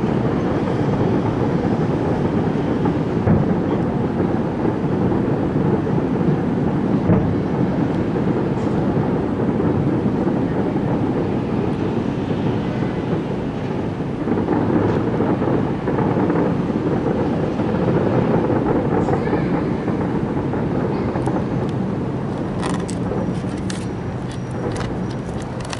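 Aerial fireworks bursting in a continuous heavy rumble, with a run of sharp crackles near the end.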